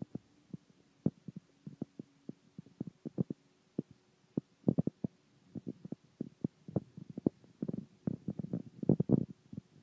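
Soft, dull thumps and taps at an irregular pace, sparse at first and coming thicker and louder in the second half, over a faint steady hum.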